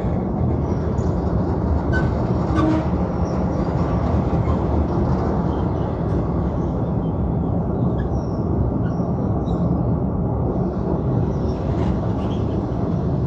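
Thai State Railway passenger train running steadily, a continuous rumble of wheels on rails and rattling carriages.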